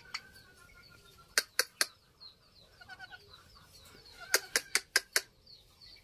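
A courting pair of Indian ringneck parakeets calling. There are short, sharp calls in quick runs, three at a time about a second and a half in and a run of five near the end, with soft chattering between.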